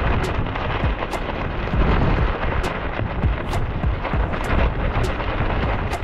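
Strong gusting wind buffeting the microphone, a loud irregular rumble that swells and falls, with scattered sharp ticks.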